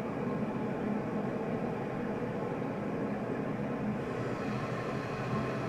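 A newly installed Fluidmaster toilet fill valve refilling the tank, with water hissing and rushing steadily.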